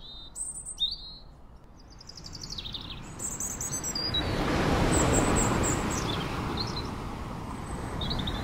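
Birds chirping in short, high calls. From about four seconds in, a wave washes up on the sandy beach, swelling and then easing off while a few more chirps sound over it.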